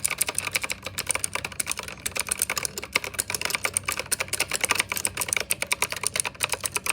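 Rapid, continuous typing on a Gigaware K28 mechanical keyboard with clicky blue switches: many sharp key clicks a second with no pause.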